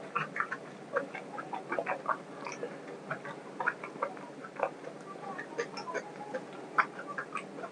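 Close-miked eating sounds: wet chewing and lip smacks as a mouthful of pav bread and chicken curry is eaten, coming as irregular clicks several times a second.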